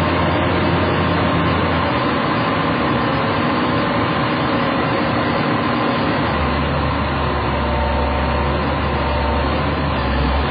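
John Deere 670CH motor grader's diesel engine running steadily. Its low hum drops in pitch and grows stronger about six seconds in.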